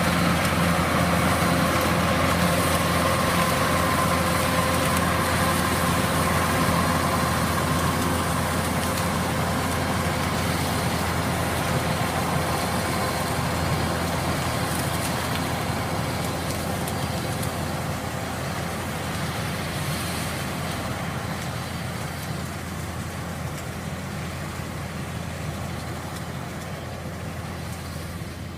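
Kubota DC-105X combine harvester's diesel engine and machinery running steadily, with a faint whine in the first few seconds; the sound grows gradually quieter.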